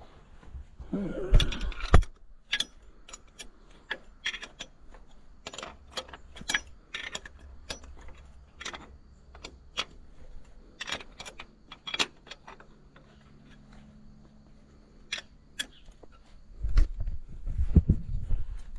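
Steel combination wrench clicking and clinking against hex bolt heads as the bolts of an Allis-Chalmers D17 Diesel's belt pulley are wrenched in by hand. The sharp metallic clicks come irregularly, a few a second, with low thumps near the start and again near the end.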